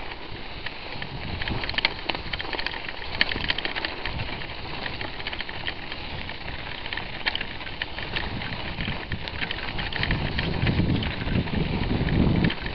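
Thin fresh snow crunching and crackling with irregular small clicks as it is crossed, over a low wind rumble on the microphone that grows stronger near the end.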